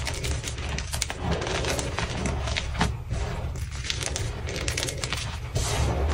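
Hands squeezing and sifting a heap of crushed orange-dyed gym chalk blocks: a dense, crunchy crackle of powder and small chunks breaking and grinding, full of quick little clicks.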